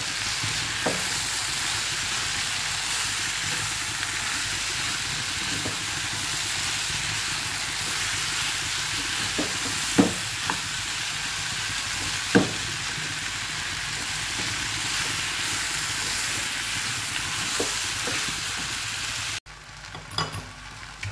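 Sprouted moth beans and vegetables sizzling in oil in a kadhai while being stirred with a wooden spatula, with a few knocks of the spatula against the pan, the loudest about ten and twelve seconds in. Near the end the sound cuts to a quieter sizzle.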